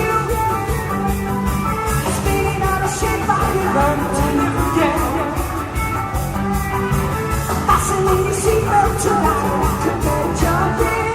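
Live rock band playing a passage of a song, full band with a steady drum beat under bass, guitar and keyboard lines.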